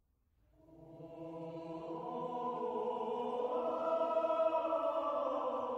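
Slow choral chant as intro music: held voices fading in about half a second in and swelling, the chord shifting slowly.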